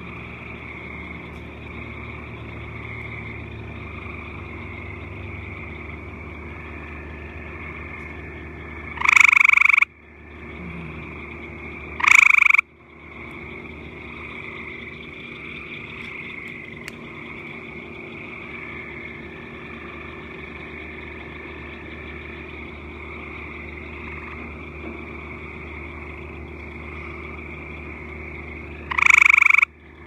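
A frog calling three times, each call a loud, short note that rises in pitch. The first two come about three seconds apart and the third near the end, over a steady background drone.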